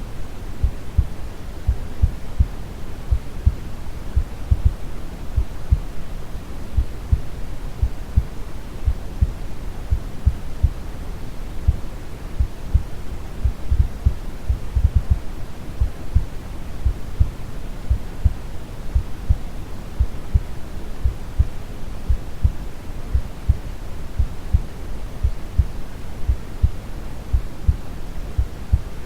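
Steady deep brown noise with a slow, calm heartbeat of soft low thumps pulsing evenly through it.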